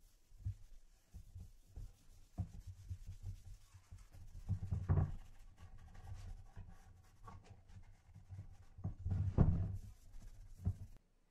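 A wooden cutting board being handled and rubbed on a tabletop: irregular scuffing and low thuds, with two louder knocks about five and nine seconds in.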